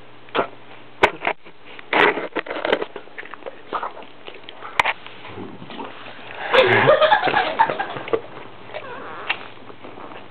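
Perro de Presa Canario sniffing at close range in short, irregular bursts, with a few sharp clicks and a longer, busier stretch of sniffing about six to eight seconds in.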